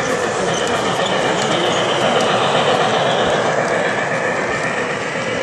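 Three-rail O-gauge model train, a streamlined steam locomotive pulling passenger cars, running past on the track: a steady sound of wheels rolling and clattering over the rails.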